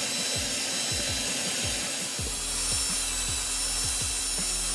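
Cordless drill spinning a sanding drum against the cast aluminum throttle-body opening of an intake manifold, grinding and smoothing the metal as the port is finished. A steady motor whine runs under the rubbing of the abrasive.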